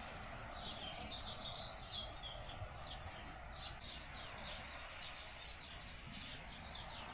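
Small songbirds chirping in quick, continual short notes over a steady, faint rush of waves breaking on the shore.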